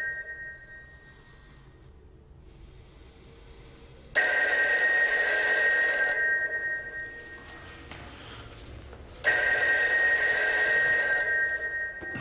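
Telephone bell ringing twice, each ring about two seconds long, the first about four seconds in and the second about five seconds after it. The last of an earlier ring fades out at the start.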